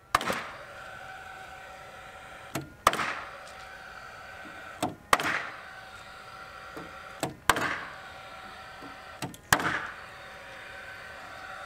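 Paslode cordless framing nailer firing five times, about every two seconds, driving 2 3/8-inch galvanized ring-shank nails through plywood decking into the floor frame. Each shot is a sharp bang with a faint click just before it, and there is a steady whir between shots.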